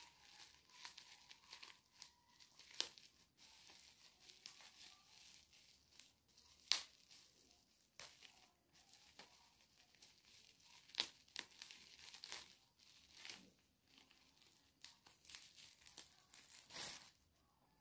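Packaging being torn open and crinkled by hand, as a prize parcel is unwrapped: an irregular run of sharp rips and crackles, loudest a little under seven seconds in and again around eleven and seventeen seconds.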